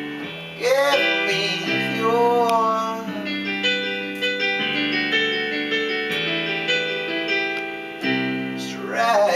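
Electronic keyboard played in a piano sound, with sustained chords throughout. A man's voice sings a few drawn-out notes without clear words over it in the first three seconds and again near the end.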